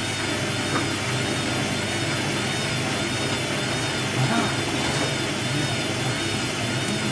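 Hoover WDYNS654D washer dryer's drum motor running steadily as the drum turns the load over, trying to balance it before a 1400 rpm spin.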